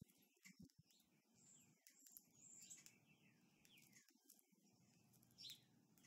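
Faint outdoor birdsong: many short chirps that slide downward in pitch, mixed with brief thin high notes, coming in a loose, irregular stream.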